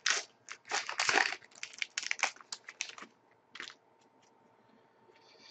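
2011-12 Upper Deck SPx hockey trading cards handled and flipped through by hand: a quick run of soft clicks and paper rustles for about three seconds, then one more brief rustle after a pause.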